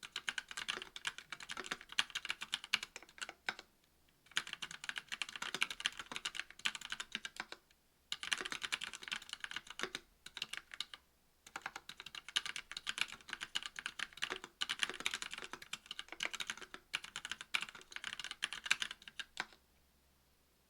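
Typing on a KBD67 V2 MKII mechanical keyboard with Kailh Pro Burgundy 50 g linear switches in a brass plate, under GMK keycaps: rapid key strikes in runs of a few seconds, broken by short pauses. The typing stops about a second before the end.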